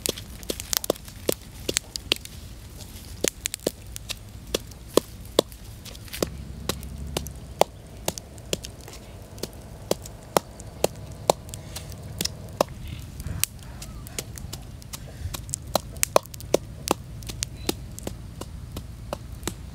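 A wooden pestle pounding a herb and spice paste in a coconut-shell mortar: a steady run of sharp knocks, two or three a second.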